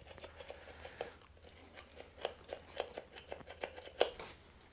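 Faint, irregular soft clicks and squishes of an oily ball hone being handled as its abrasive balls are lubed with oil, with one sharper click about four seconds in.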